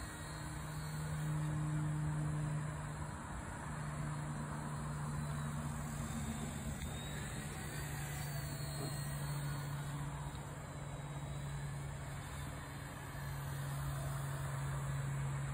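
Eachine E119 RC helicopter in flight, its rotor making a steady low buzz that swells louder and fades as it darts about.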